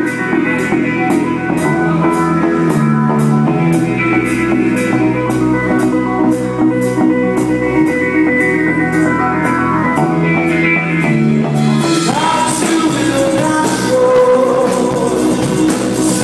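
Live rock band playing with electric guitar, keyboards and drum kit, the drums keeping a steady beat. About twelve seconds in the music changes, with a wash of cymbals and sliding tones.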